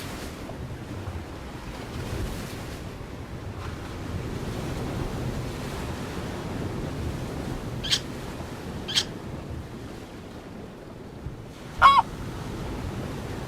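A bird calling over a steady rushing background noise: two short, high calls about eight and nine seconds in, then one louder, lower call near the end.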